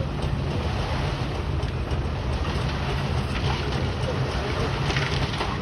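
Pile-driving machinery running with a steady low rumble.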